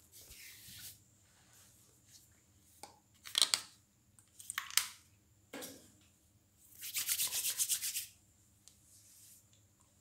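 A hand rubbing and scratching a dog's short fur close to the microphone: short scratchy rubbing strokes about three and a half and four and a half seconds in, then a longer run of quick strokes about seven seconds in.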